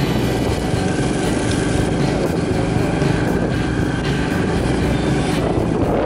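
Motorbike engine running steadily while riding, heard from on the bike, with road and wind rush mixed in.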